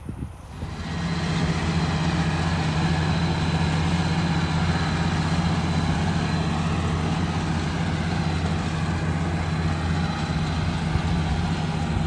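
An engine idling steadily. It comes up about a second in, then holds an even low hum.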